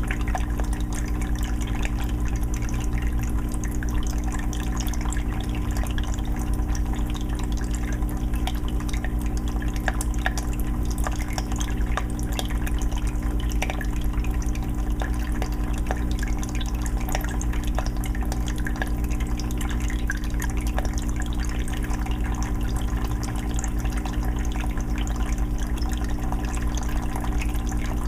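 Aquarium filter running steadily: water trickling and splashing back into the tank with a constant patter of drips over a low steady hum from the filter motor.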